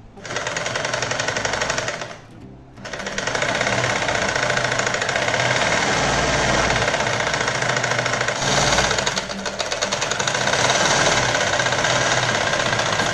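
A Merritt sewing machine driven by a newly fitted Al Hind electric motor through a belt, stitching fabric at speed on its first test run: a fast, even clatter of the needle mechanism. It stops briefly about two seconds in, then runs steadily again.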